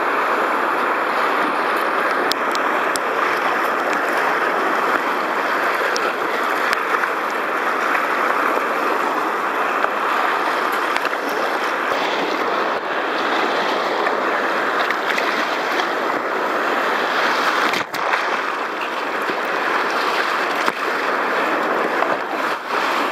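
Whitewater rapids rushing steadily around a kayak, heard close to the water from the boat's cockpit, with a few sharp ticks of splashing water.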